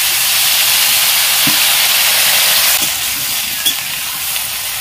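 Freshly washed, wet pumpkin stems, taro and potato sizzling loudly in hot oil in a kadai, just after being tipped in, with a few small pops. The sizzle eases slightly about three seconds in.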